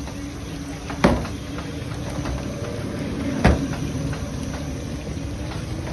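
Street food stall background: a steady rumble with a low hum, broken by two sharp knocks, about a second in and again about three and a half seconds in.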